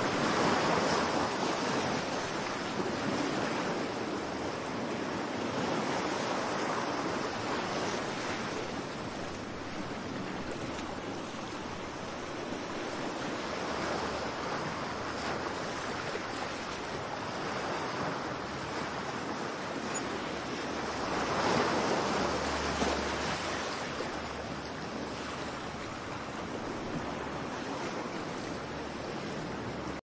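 Rough cyclone surf breaking on the shore: a continuous wash of waves that swells and eases every few seconds, loudest about a second in and again about two-thirds of the way through.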